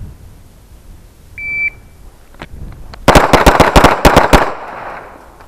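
A shot timer's start beep, a short steady electronic tone, sounds a little over a second in; about a second and a half later two 9mm pistols, a Smith & Wesson M&P among them, fire a rapid string of about ten shots in roughly a second and a half (five rounds from each shooter), with a brief echo after the last shot.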